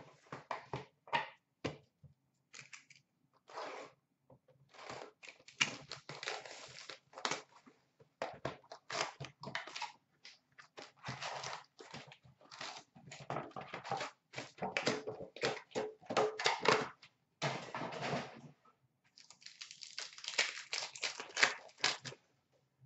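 Hockey card packs being torn open by hand: wrappers ripping and crinkling in a rapid, irregular run of rustles, with packs and cards handled in between.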